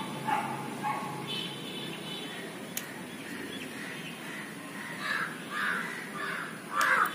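Crows cawing: a few short calls in the first second, then a run of calls from about five seconds in, the loudest just before the end, over a steady low background rumble.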